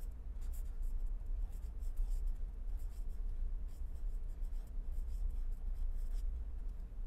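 Pen writing on paper: a quick run of short strokes as a word is written out, over a steady low hum.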